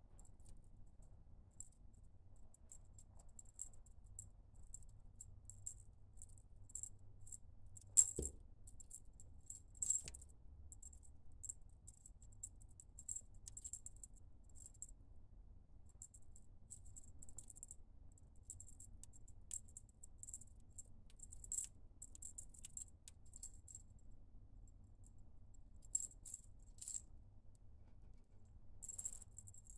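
Light, irregular jingling, like a small bell or rattle being shaken in short bursts. A sharp knock comes about eight seconds in and a lighter one about two seconds later.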